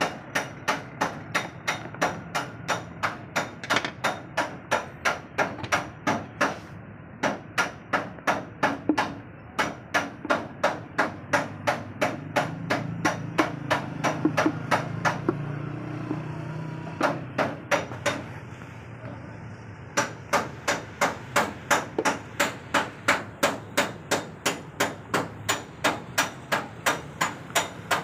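Steady rhythmic hammering, sharp blows about three a second, that stops for a few seconds past the middle while a low hum is heard, then resumes.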